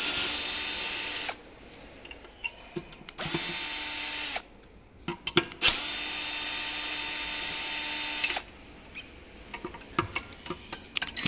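Power drill-driver backing out the screws of an electric scooter's folding mechanism: three runs of steady motor whine. The first stops about a second in, the second lasts about a second and a half, and the last runs nearly three seconds, with small clicks of handling between the runs and after them.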